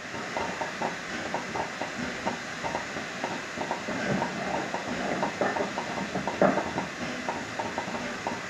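Steam train running, with a fast, irregular clatter of short clicks over a steady hiss of steam.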